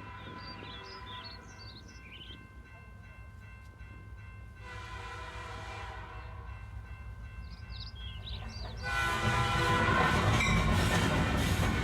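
Railway train sounds: a pitched horn-like blast about five seconds in, then from about nine seconds in a much louder rumbling of a train running past on the tracks.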